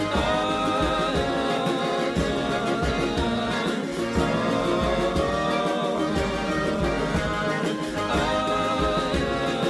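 Background music: an instrumental passage with long held, slightly wavering melody notes over a steady rhythm.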